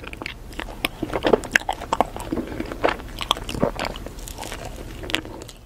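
Close-miked eating sounds: a person biting and chewing ice cream, a rapid scatter of short mouth clicks and crunches.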